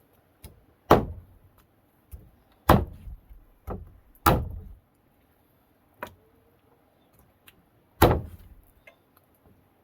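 A series of sharp, irregular knocks: four loud strikes and several lighter taps, each dying away quickly.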